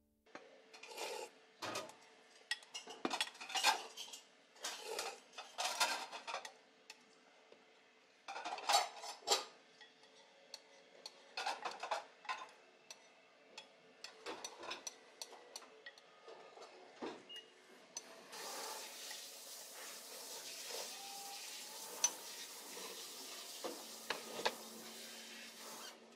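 A soup spoon clinking and scraping against a ceramic ramen bowl while eating, in a run of short separate clatters and sips. A steady hiss comes in about two-thirds of the way through and carries on under the last few clinks.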